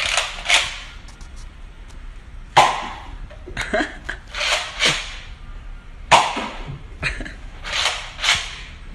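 Toy foam-dart blaster firing repeatedly, a sharp puff of air with each shot, about ten shots at uneven spacing.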